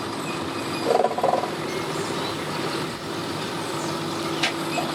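Engines of boats and tow vehicles running steadily, a continuous hum, with a short louder sound about a second in.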